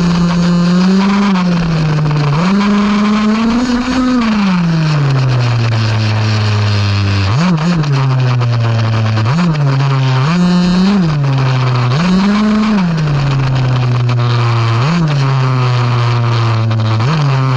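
RC car's motor heard from a camera mounted on the car, running steadily with its pitch rising and falling in repeated bursts of throttle, about eight times, over a hiss of tyres on the road.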